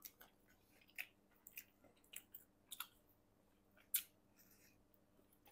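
Faint, scattered mouth clicks and smacks of people chewing and biting pizza, with one sharper click about four seconds in.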